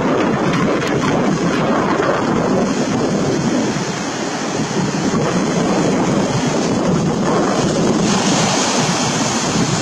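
Ocean surf washing onto a beach, with wind rumbling on the microphone. The hiss of the surf grows brighter about eight seconds in.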